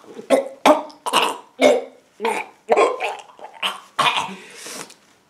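A man making exaggerated throaty retching noises as a mock feeding, a string of about ten short bursts roughly two a second, the last one longer and breathier.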